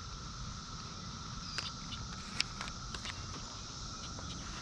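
Outdoor pond-side ambience: a steady insect drone holding one high pitch over a low rumble, with a few faint clicks.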